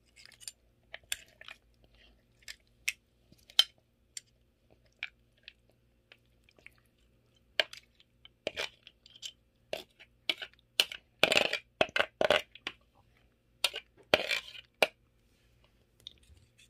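Eating green papaya salad with cockles: irregular sharp clicks and crunches, bunched most thickly about eleven seconds in and again around fourteen seconds.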